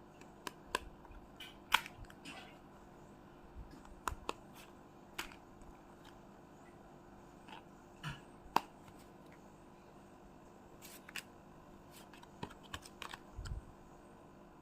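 Pokémon cards and their packaging being handled by hand: irregular sharp clicks, snaps and taps with a few short rustles, in small clusters spread through the stretch.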